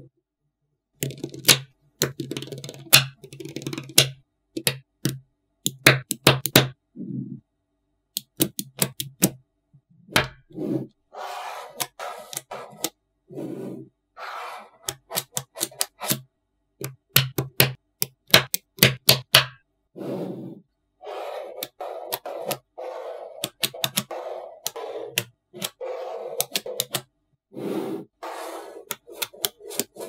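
Small neodymium magnet balls clicking and snapping together in quick, irregular runs of sharp clicks, with short stretches of rattling between them and a few brief gaps of dead silence.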